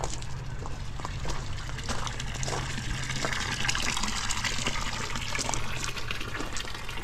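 Water running and splashing through a wooden gold-panning sluice trough, growing louder a few seconds in.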